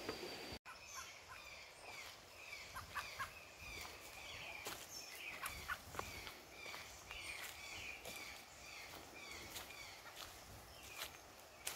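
Birds calling in the forest, a long series of short repeated chirping notes, with footsteps on a leaf-littered dirt trail. The sound drops out for an instant about half a second in.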